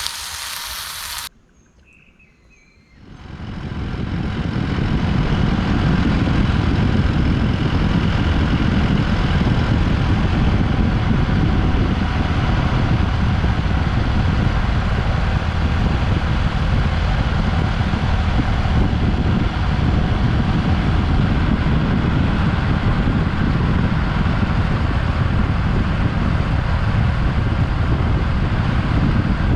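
Honda Super Cub 110 motorcycle on the move: steady engine and road noise with a rushing haze like wind, fading in over a few seconds after a brief burst at the start.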